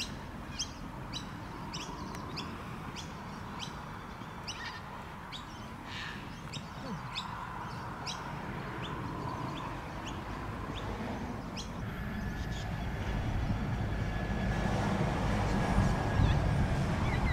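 A bird chirping over and over, short high chirps about twice a second, thinning out after about twelve seconds. A low rumble grows louder near the end.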